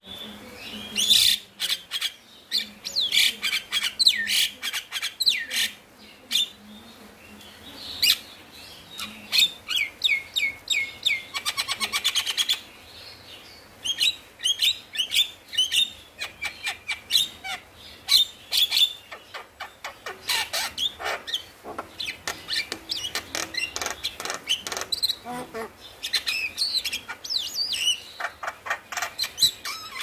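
Male Javan myna singing in full song: a varied, nearly continuous run of whistles, chattering notes and quick repeated calls. About eleven seconds in comes a fast buzzy rattle.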